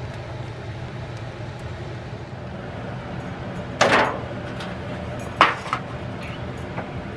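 Disposable aluminium foil pan handled and set down on a countertop: a short crinkling rustle about four seconds in, then a sharp knock and a couple of light ticks. A steady low hum runs underneath.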